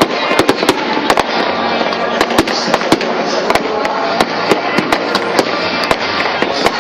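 Aerial fireworks display: rapid bangs and crackles, several a second and unbroken, over a dense hiss of bursting shells.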